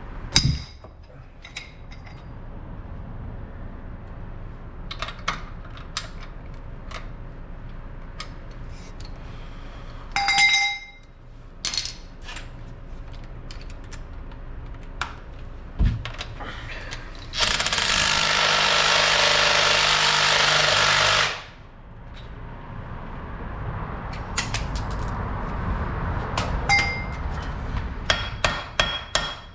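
Sockets and tools clinking on metal, then about four seconds of an impact wrench hammering at a rounded-off lug nut with an extractor socket, followed by more clinks.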